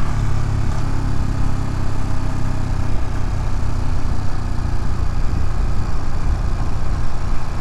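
Ducati Monster's L-twin engine running at steady revs under the rider, with rushing air noise over it.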